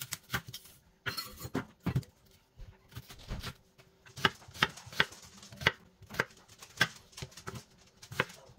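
Kitchen knife cutting through an onion and knocking on a wooden cutting board, a string of sharp cuts that settles into about two a second from about four seconds in.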